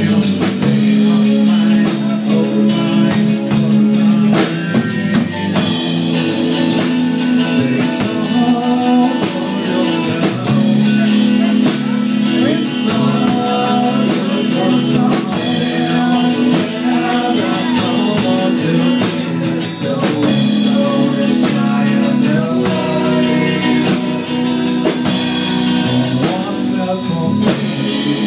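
Live rock band playing: amplified electric guitars and a drum kit with a man singing the lead vocal.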